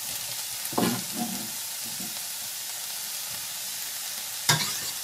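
Vegetables and halloumi cubes frying in a hot iron skillet: a steady sizzling hiss, with two short knocks, one about a second in and one near the end.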